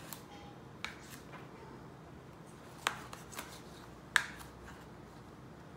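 Small kitchen knife slicing a tomato, the blade tapping a plastic cutting board in a handful of sharp, irregular taps, the loudest two near the middle and about four seconds in.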